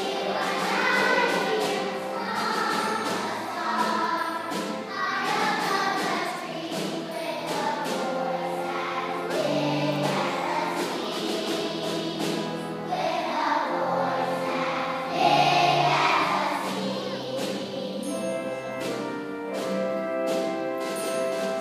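Children's choir singing, with long held notes near the end.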